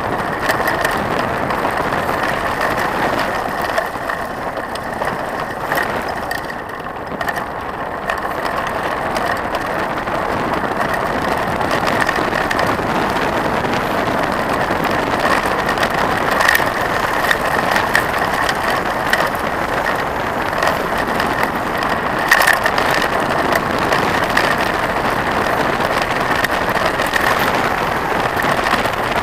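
Trek 4900 mountain bike rolling over a gravel forest road, heard close from the handlebars: a steady rumble and rattle of tyres on gravel and the bike shaking, with a few sharp knocks from bumps.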